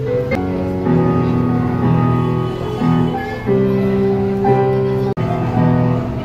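A child playing an electronic keyboard amplified through a small speaker: held piano-like chords that change about once a second. The sound cuts out for an instant about five seconds in.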